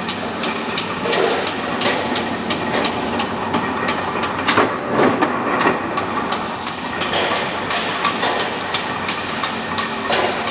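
Workshop machinery for cutting aluminium scaffolding parts running, with a rapid regular clicking of about three clicks a second and two short hisses a little before and after the middle.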